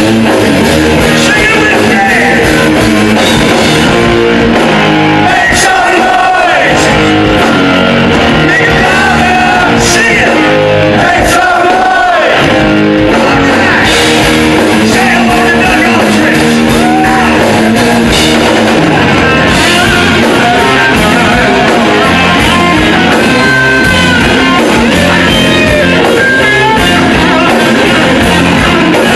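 Hard rock band playing live and loud: distorted electric guitars, bass guitar and drum kit, with a voice singing over them and guitar bends standing out in the second half.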